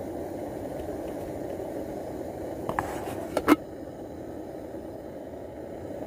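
Pot of kimchi stew boiling on a camp stove, a steady low rushing, with a few sharp clicks a little past halfway, the last and loudest about three and a half seconds in.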